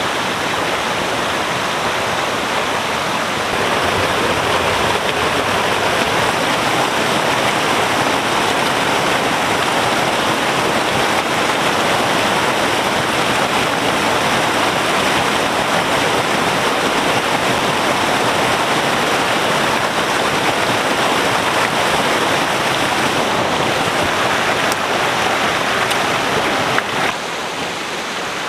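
Mountain stream rushing over small rocky cascades and a low waterfall, a steady loud rush of water that turns quieter about a second before the end.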